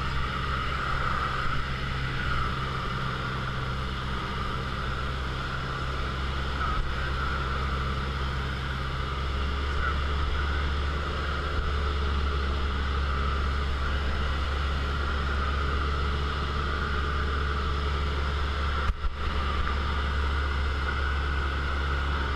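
Piston engine and propeller of a single-engine light aircraft droning steadily, heard inside the cockpit on the approach to landing. The engine note shifts about nine seconds in, with a brief click near the end.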